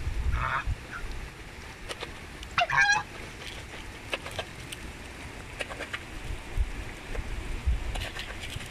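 Domestic geese honking: a short call right at the start and a louder, wavering call about three seconds in, with scattered sharp clicks and a low rumble between them.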